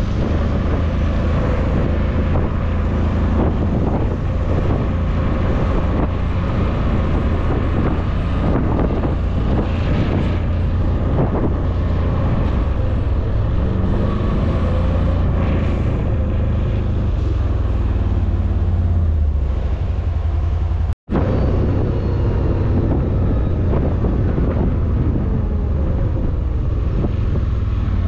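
CFMOTO G3 1000 engine running under way, its pitch shifting with the throttle, under heavy wind noise on the microphone. The sound drops out for an instant about two-thirds of the way through.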